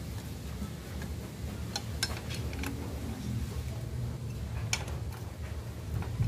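Light metallic clicks and taps from hand work on a motorcycle engine's side cover: a quick cluster about two seconds in, two more near five seconds, and a dull thump at the end, over a steady low hum.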